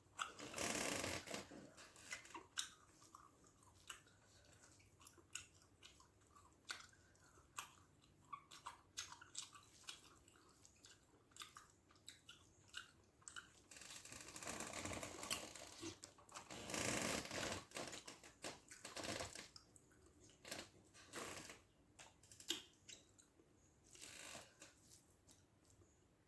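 A person eating rice with mackerel fish gravy, heard close up: chewing with irregular wet clicks and smacks. A few louder hissy, rustling stretches come near the start and again around the middle.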